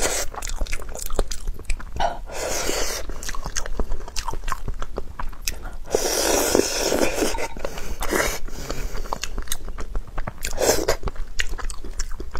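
Close-miked chewing and biting of soft, tender food, with many small wet mouth clicks and smacks and occasional louder bites or slurps.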